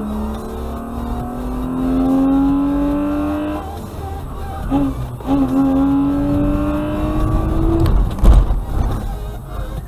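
Car engine accelerating through the gears, its pitch rising steadily and dropping at a gear change about three and a half seconds in, then rising again. A loud low thump comes about eight seconds in.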